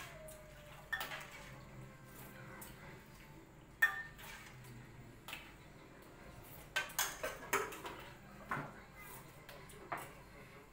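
Stainless steel ladle and spoons clinking against steel pots, bowls and plates as food is served and eaten: scattered light clinks, a few of them ringing briefly, with a quick run of several about seven seconds in.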